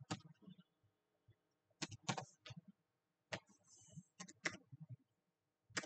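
Computer keyboard keys being pressed one at a time, about half a dozen separate faint clicks spaced roughly a second apart as a number is typed in.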